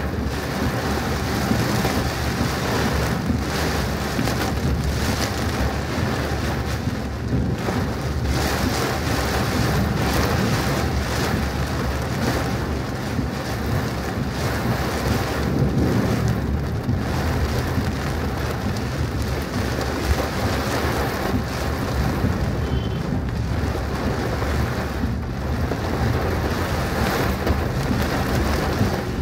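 Heavy rain pelting a moving car, a steady hiss over the constant low rumble of the car and the road.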